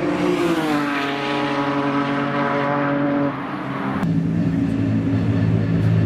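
A BMW E46 race car's engine at high revs, its pitch falling as it passes and pulls away. About four seconds in there is an abrupt switch to a different race car's engine, a SEAT Leon Cupra TCR's turbocharged four-cylinder, running at steady revs and growing slightly louder as it comes closer.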